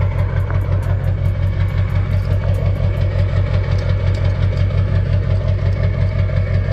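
Tow truck's engine idling steadily with an even, low pulse.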